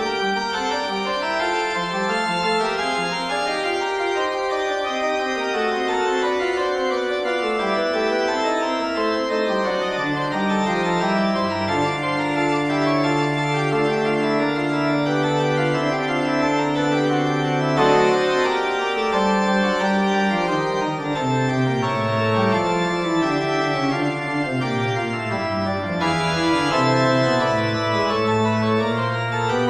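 Organ music, with chords and moving melody lines over long held low bass notes.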